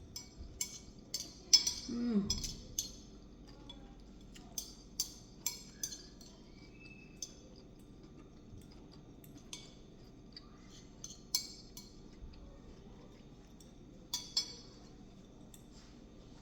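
Irregular clinks and taps of utensils against dishes, densest in the first three seconds and again around 14 seconds in. A short vocal sound about 2 seconds in.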